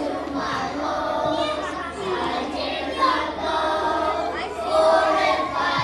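A group of young children singing together on held notes, with some chatter mixed in.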